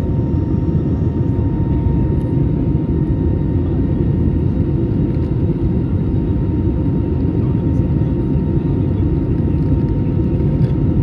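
Steady cabin noise of an Airbus A320neo in flight: a low, even rush of airflow and engine drone with a thin steady whine near 1 kHz.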